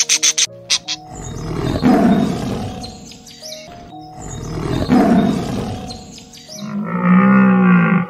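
Tiger roaring twice, each roar a long, rough call that swells and fades over about two seconds. A short pitched call from another animal follows near the end.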